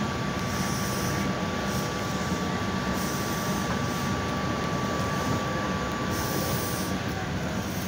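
South Shore Line Nippon Sharyo electric railcar standing at a platform, its onboard equipment running with a steady hum. A thin, high, steady tone runs along with it and stops near the end.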